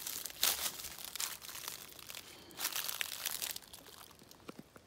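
Footsteps crunching through dry fallen leaves in a few uneven bursts of crackling, dying away near the end.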